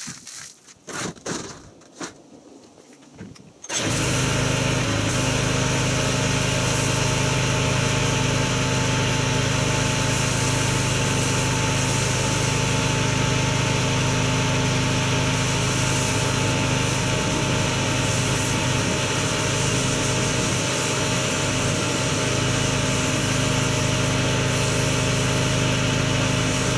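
Water splashing as a soapy wash mitt is wrung out, then a pressure washer starts abruptly about four seconds in and runs steadily with an even motor hum and the hiss of its spray for rinsing the car.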